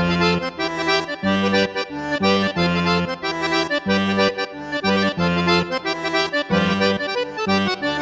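Instrumental music with no singing: a melody of short, rhythmic chords over a repeating bass line.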